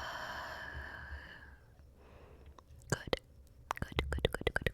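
A long breathy exhale close to the microphone, fading out about a second and a half in, then from about three seconds in a quickening run of wet mouth clicks and pops.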